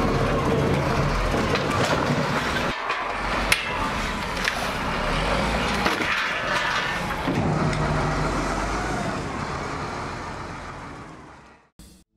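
Diesel engine of an XCMG LW500FN wheel loader working, with sharp cracks and knocks of block walls breaking and rubble falling. The sound fades out near the end.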